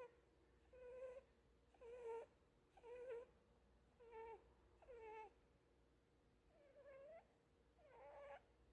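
A resting rabbit breathing with a faint, squeaky whistle on each breath, repeating about once a second.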